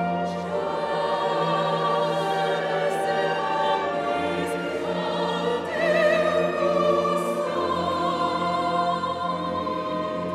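Classical oratorio music: voices singing sustained, wavering notes with vibrato over a steady instrumental accompaniment with a held bass, swelling a little louder about six seconds in.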